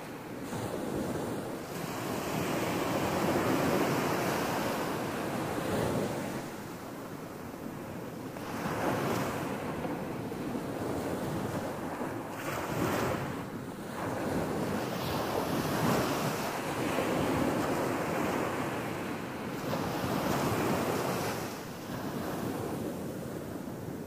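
Small ocean waves breaking and washing up onto a sandy beach, the rush of surf swelling and easing every few seconds.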